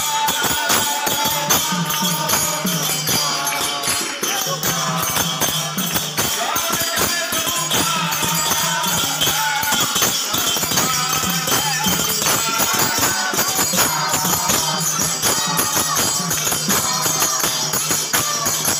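Devotional kirtan music: a mridanga drum played in fast strokes and small karatala hand cymbals clashing in a steady jingling rhythm, with a voice chanting over them.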